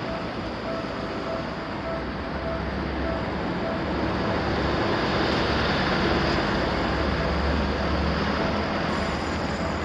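Japanese railway level-crossing warning bell ringing in a steady repeating beat. A passing train's rolling noise swells up in the middle and drowns the bell for several seconds, then the bell is heard again near the end.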